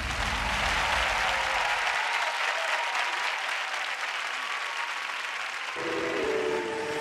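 Studio audience applauding and cheering during a break in the stage music, with a held musical tone starting faintly near the end.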